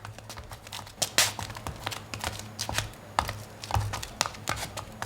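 Foley footsteps being performed with shoes: a quick, irregular run of sharp taps and scuffs, some louder than others, over a steady low hum.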